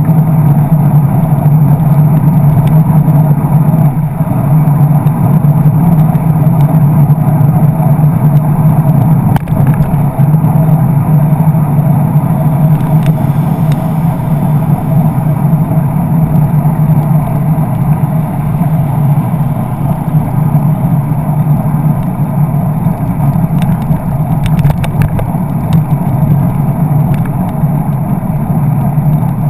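Steady, loud riding noise from a handlebar-mounted camera on a moving bicycle: wind and road rumble, with car traffic alongside. A few light clicks come near the end.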